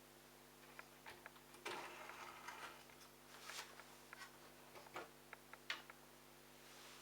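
Faint scattered clicks and a few short rustling scrapes of plastic parts being handled at the washing machine's drain pump filter, over a low steady hum.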